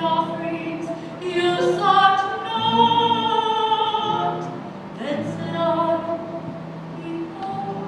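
Liturgical singing: voices sing a slow hymn with noticeable vibrato over held, steady accompaniment chords, phrase breaks about two and a half and five seconds in.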